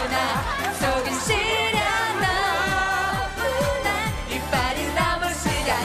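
Korean pop song with a steady kick drum beat and a voice singing the melody over it.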